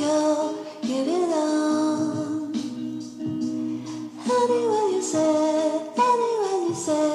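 Background music: a song with a sung melody.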